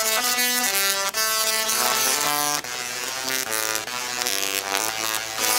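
A pair of singing Tesla coils playing a tune, the sparks buzzing out each note as a harsh, electric tone that steps from pitch to pitch.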